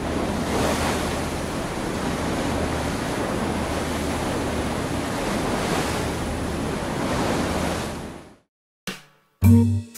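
Steady rush of sea waves with wind, fading out about eight seconds in. After a short gap, music with sharply struck notes begins near the end.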